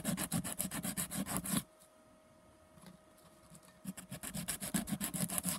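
A small carved pine lure body being sanded by rubbing it back and forth on a sheet of coarse 80-grit sandpaper laid flat, in quick scraping strokes about six a second. The strokes stop for about two seconds, then start again near the end.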